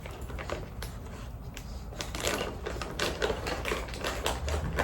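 Crinkling and irregular clicking of packaging being handled and opened, a quick run of sharp crackles busiest in the middle.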